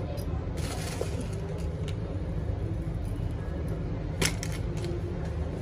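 A plastic spice packet crinkling as it is handled, with faint scattered crackles and one sharp crackle about four seconds in, over a steady low hum.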